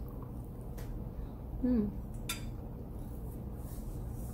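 A short falling 'mm' hum from a person eating, followed about half a second later by a single sharp clink of a metal spoon against a plate, over a low steady background hum.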